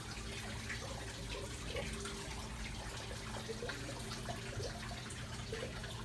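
Water trickling and dripping, with many small scattered drips over a steady low hum.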